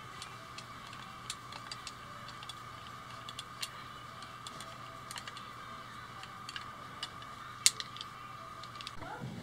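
Light, irregular metallic clicks and ticks of small steel parts, a planer blade and its fittings, being handled and fitted together by hand. One sharper click stands out near the end, over a faint steady hum.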